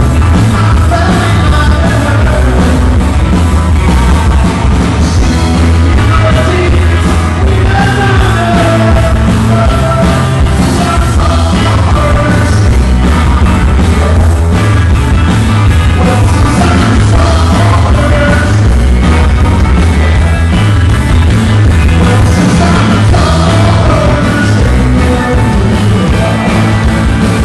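Live rock band playing through a PA at a sound check: a man singing into a microphone over drums, acoustic and electric guitars, loud and heavy in the bass.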